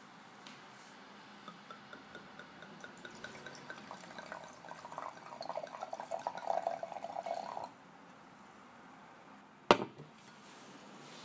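Liquid dripping in small, evenly spaced drops that come faster and faster, then a few seconds of pouring that stops suddenly. Near the end there is one sharp knock, the loudest sound.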